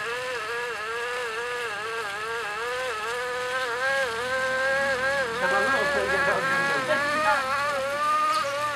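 Silk-reeling wheel whining as it draws threads from cocoons soaking in hot water. The pitch rises and falls in a regular wobble, about twice a second. A second, lower whine slides in about six seconds in.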